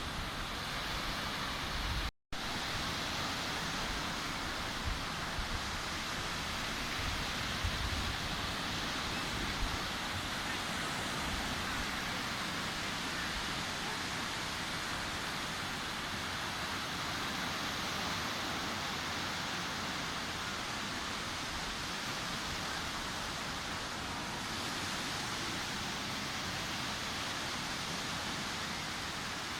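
Sea surf washing steadily onto a beach as a continuous rushing hiss. The sound cuts out for a split second about two seconds in.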